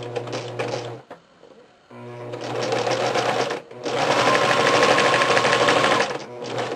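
Electric sewing machine stitching elastic onto a cloth diaper in three spurts: it runs, stops for about a second, runs again, pauses briefly, then runs fastest and loudest before slowing and stopping near the end. The needle's rapid ticking is heard throughout each run.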